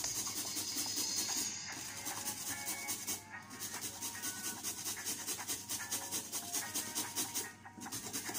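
Carrot being grated on a metal box grater: quick, repeated rasping strokes, with short pauses about three seconds in and near the end. Soft background music plays underneath.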